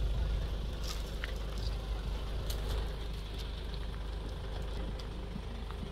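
Goats browsing in a thorny argan tree: scattered light crackles and snaps of twigs and leaves over a steady low rumble.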